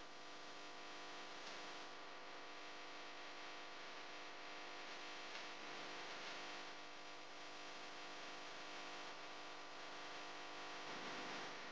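Faint steady hum and hiss, with a few soft scrapes of a wooden spoon stirring semolina into melted butter and honey in a stainless steel pot.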